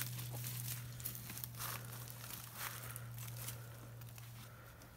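Footsteps crunching through dry leaves and twigs on a forest floor, irregular crackles with each step, over a steady low hum.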